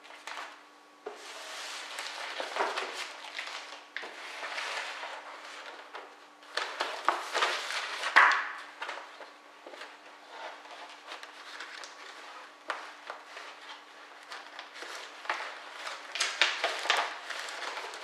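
Paper rustling and crinkling as a thick bundle of papers and receipts is handled and pulled out of a cardboard accordion file folder. It comes in irregular bursts of a second or two, with small clicks and taps, loudest about eight seconds in.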